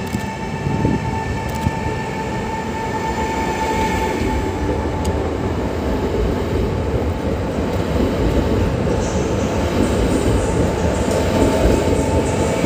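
An electric multiple unit running past at close range. A steady high tone sounds for the first few seconds and fades, and the rolling rumble of wheels on rails slowly grows louder.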